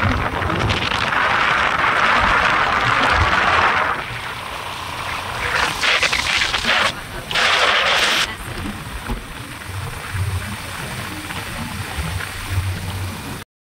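Motorbike ride: wind rushing over the phone's microphone over the low rumble of the bike and road, with strong gusts during the first four seconds and twice more around six and eight seconds. The sound cuts off suddenly just before the end.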